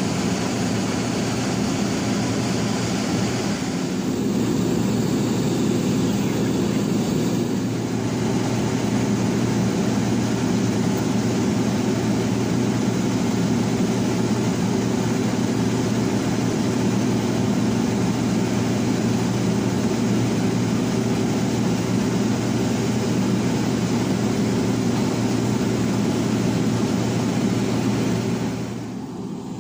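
Turboprop aircraft engine running steadily at a constant pitch, a loud even drone that drops away near the end.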